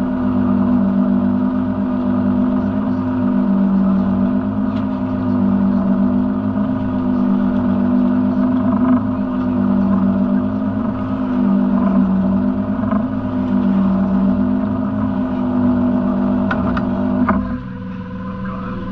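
Lobster boat's engine running steadily, a pitched drone that wavers slightly as pots are hauled. About three-quarters of the way through, its higher tones drop away and it gets quieter, and there are a few knocks of pot gear on the rail.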